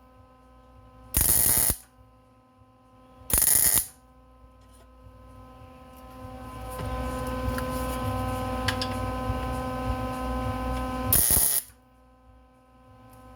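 Three short tack welds, each a noisy burst of about half a second, about a second, three and a half seconds and eleven seconds in, joining sheet-steel pieces of a chainsaw expansion-chamber exhaust. Between them runs a steady electrical hum that gets louder from about six seconds in.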